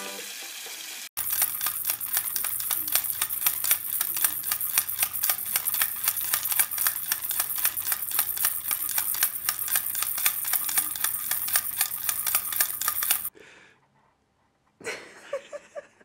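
A Moluccan cockatoo shaking a small plastic rattle toy held in its foot: a fast, steady rattling for about twelve seconds that cuts off suddenly. It is preceded by about a second of water spraying from a hose, and followed by a few faint rustles near the end.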